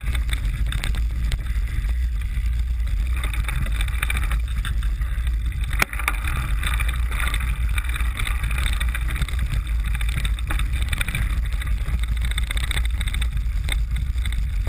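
A bicycle rolling slowly over brick paving, heard through a camera mounted on the frame by the chainring: a steady low rumble with light rattles, and one sharp knock about six seconds in.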